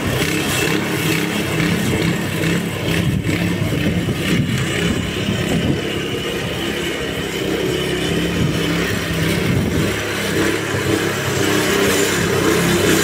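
Petrol engine of a Weibang lawn scarifier running steadily under load as it rakes moss and thatch out of the lawn. It gets a little quieter as the machine moves away, then louder again near the end as it comes back.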